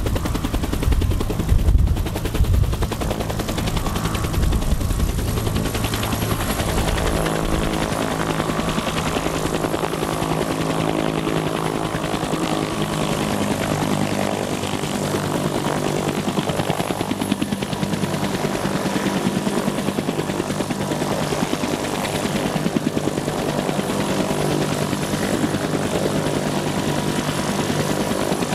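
Bell UH-1D Huey helicopter running on the ground, its two-blade main rotor beating heavily at first. After about seven seconds the low beat eases, leaving a steady turbine whine and rotor hum.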